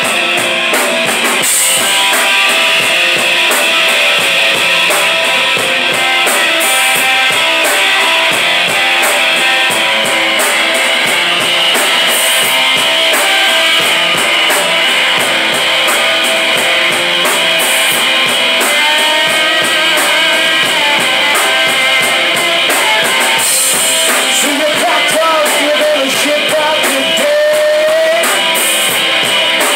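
Live rock band playing: electric guitars, electric bass and a drum kit with cymbals, at a loud, steady level and with little deep bass.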